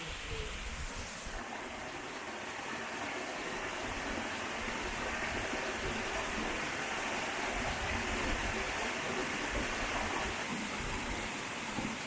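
Steady rush of water from a rocky mountain stream cascading over boulders below a waterfall, growing a little louder toward the middle.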